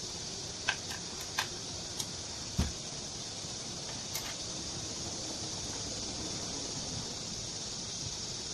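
A handful of small sharp metal clicks and knocks from handling a Honda GX35 brush-cutter engine's parts and a screwdriver, the loudest a click with a dull thump about two and a half seconds in. Under them runs a steady hiss.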